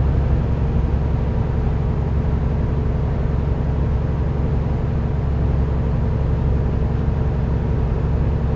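Semi truck's diesel engine and road noise at a steady cruise, heard inside the cab: an even, unchanging drone.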